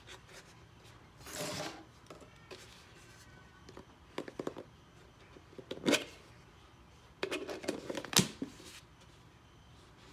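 Empty plastic yogurt tub handled and turned over in the hands: a rustle, then scattered plastic clicks and knocks, the sharpest about six seconds in and just after eight seconds.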